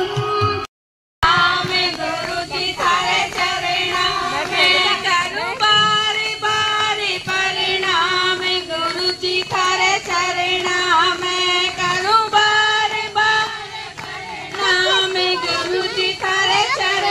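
A woman sings a devotional song into a microphone, amplified through a loudspeaker, with a flowing, melodic vocal line. A brief half-second dropout to silence comes just before a second in.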